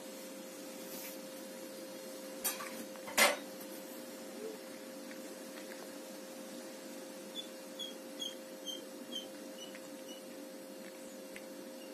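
A cat eating small pieces of olive: faint chewing and picking-up sounds, with two sharp clicks about two and a half and three seconds in, the second the loudest, and a run of faint quick ticks around eight seconds in, over a steady background hum.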